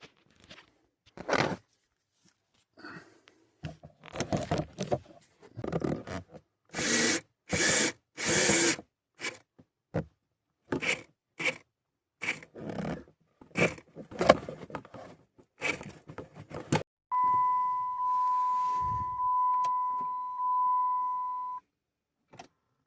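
A string of short scrapes, clicks and knocks from screws being driven and dashboard trim being handled. Near the end a steady electronic warning tone sounds for about four and a half seconds, then cuts off sharply.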